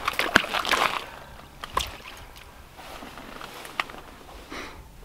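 Water sloshing and splashing in a hole in lake ice as a perch is let back down into it, then a few sharp clicks.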